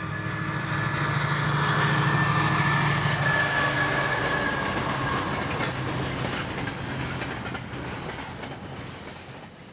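Diesel freight locomotive hauling a container train past: a steady engine drone over the rumble of wagons rolling on the rails, swelling over the first couple of seconds and then slowly fading away to nothing.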